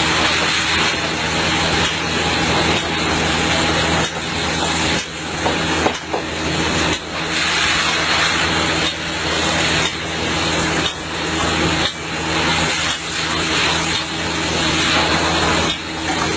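Heavy machinery's diesel engine running steadily at constant speed, with a dense rushing noise over it that dips briefly every second or two.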